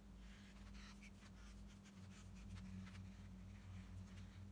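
Faint scratching of a marker drawn around a paper template onto EVA foam, in short irregular strokes, over a low steady hum.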